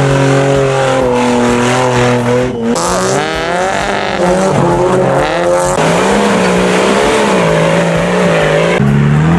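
Off-road 4x4's engine running hard at high revs, its pitch wavering up and down from about three seconds in and rising again near the end.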